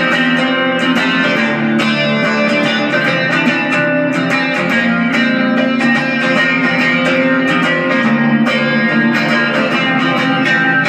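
Guitar music, a steady stream of plucked notes.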